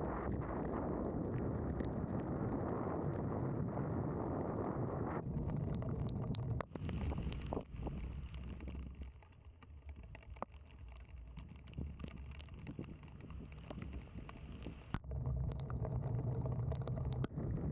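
Wind noise and the hiss of tyres on a wet road, picked up by a camera mounted outside a Tesla Model 3 driving in the rain, with scattered sharp ticks of raindrops striking the camera. The noise drops away for several seconds midway and comes back up near the end.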